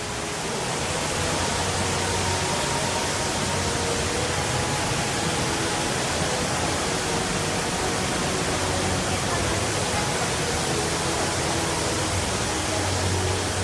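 Steady rushing of falling water from the Rain Vortex, a tall indoor waterfall, holding an even level throughout, with a faint low hum underneath.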